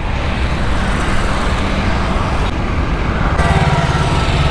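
Royal Enfield Classic 350 single-cylinder engine running at cruising speed, with steady wind and road noise. Its low engine note comes through more strongly about three seconds in.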